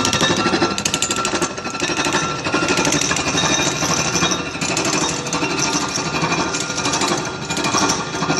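Universal milling machine with a Sanches Blanes Renânia gear-cutting attachment, cutting the teeth of a 106-tooth, module 4 cast-iron gear. It makes a dense, steady metallic rattle with a ringing tone running through it.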